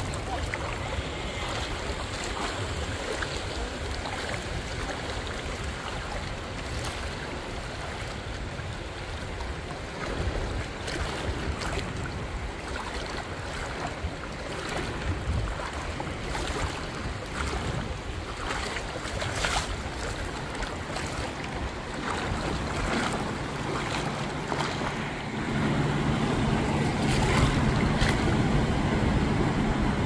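Calm, shallow sea water lapping and swishing, with some wind on the microphone. About three-quarters of the way through, a motorboat's steady engine hum comes in and gets louder.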